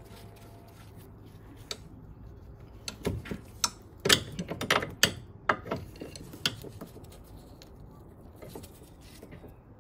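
Irregular metallic clinks and knocks as a new anti-roll bar stabilizer link is worked by hand into its suspension mounts. The knocks bunch up in the middle and thin out toward the end.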